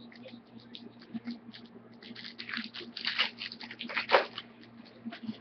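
Trading cards being handled and shuffled by hand: a run of crackly clicks and rustles that grows busiest and loudest about two to four seconds in.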